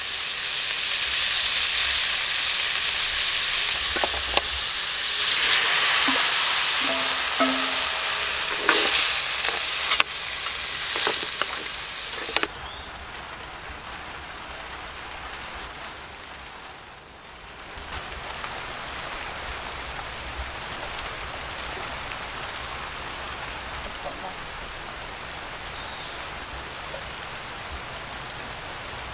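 Mud clams frying in oil in a wok, a loud steady sizzle with a few knocks of a utensil against the pan. About twelve seconds in it drops suddenly to a quieter steady hiss as the wok cooks on under a lid.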